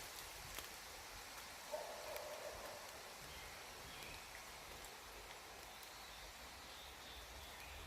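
Wind rustling through a bamboo grove: a soft, even hiss of bamboo leaves stirring.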